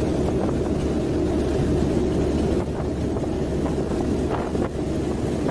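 Loud, steady drone of a transport aircraft's engines heard inside the cabin, with a rushing wind-like noise.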